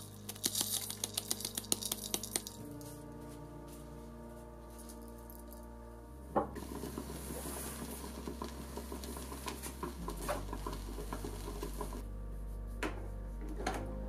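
Rice grains clicking and rattling against a metal pot for the first couple of seconds. After a sharp click, a drip coffee maker sputters and hisses as it brews, and a couple of clicks near the end come as the glass carafe is handled. Soft background music with sustained notes plays throughout.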